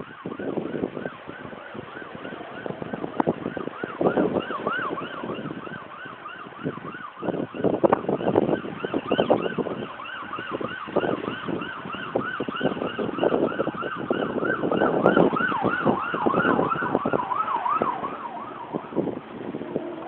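Emergency-vehicle siren in a fast yelp, rising and falling several times a second. It comes in about four seconds in, is strongest through the middle, and fades out near the end, over gusts of wind buffeting the microphone.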